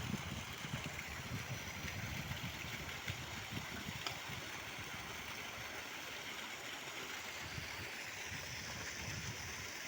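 Steady hiss of rain falling, with low uneven rumbles in the first few seconds.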